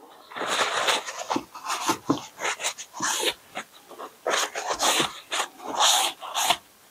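Towel rubbing across a wooden scrap board in a run of irregular strokes, wiping the excess wood stain off test swatches.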